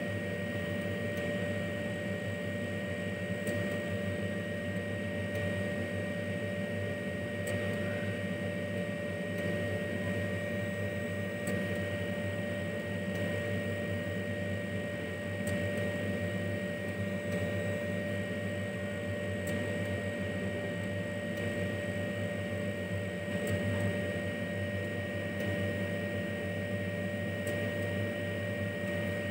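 Steady hum of running machinery, with two steady whining tones over a low rumble and a faint tick about every four seconds.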